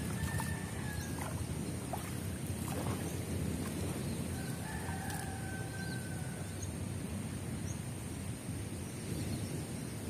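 Water sloshing and swirling around a person wading thigh-deep while hauling in a gill net, under a steady low rumble of wind on the microphone. Two faint long animal calls sound in the background, one near the start and a longer one around the middle.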